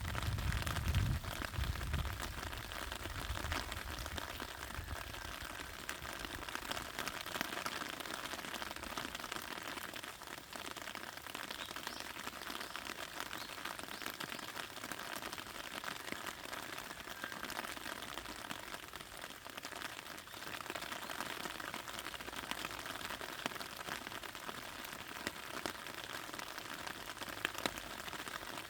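Steady rain falling on a raspberry patch, many fine drop ticks over an even patter. A low rumble underlies the first few seconds.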